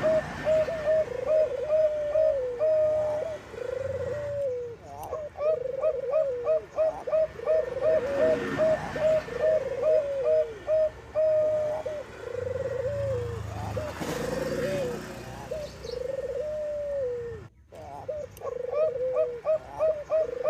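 Zebra doves (Bangkok perkutut) cooing: phrase after phrase of quick clipped notes running into longer bending coos, with a brief sudden break near the end.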